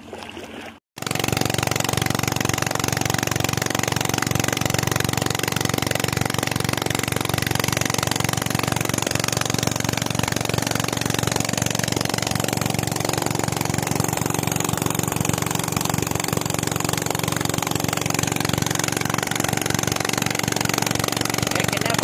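Small air-cooled engine driving a centrifugal borewell pump, running steadily at working speed, mixed with the rush of the pumped water gushing out of the pipe outlet. It cuts in suddenly about a second in.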